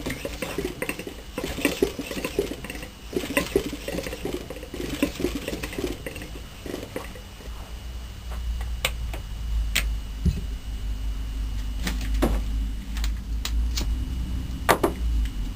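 Metal parts of a model Rider hot air engine being handled and fitted by hand: quick, irregular clicks and rattles for about the first six seconds. Then a low rumble with a few single sharp clicks.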